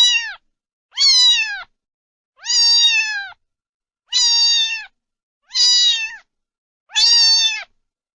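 A cat meowing over and over, about six meows a little over a second apart; each meow holds a high, even pitch and then drops away at its end.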